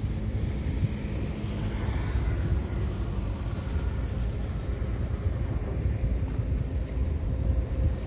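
Heavy construction machinery's diesel engine running, a steady low rumble.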